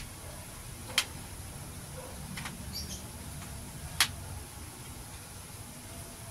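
Shock-corded camping chair poles being fitted into the frame's hub, clicking into place: a few sharp clicks, about a second or more apart.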